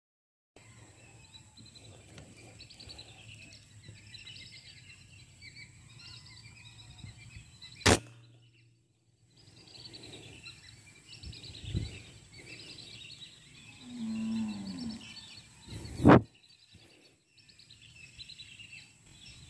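Two sharp air rifle shots, the first about eight seconds in and the second about eight seconds later, over steady chirping of birds.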